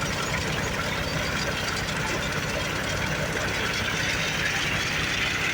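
Heavy diesel engine of construction machinery running steadily at low revs, with an even low chugging.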